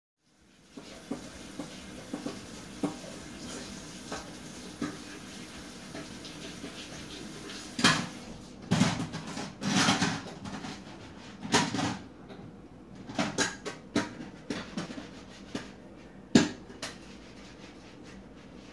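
Irregular knocks and clatters, a few light ticks at first, then louder and more frequent ones in the second half, the loudest about two-thirds of the way through, over a faint steady background.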